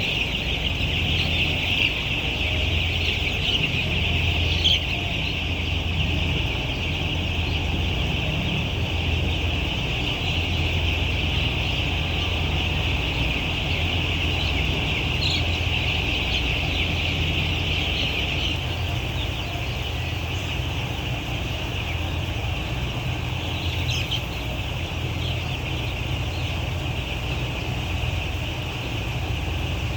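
A dense, continuous chorus of many broiler chickens calling, over a steady low hum. The chorus eases somewhat a little past halfway.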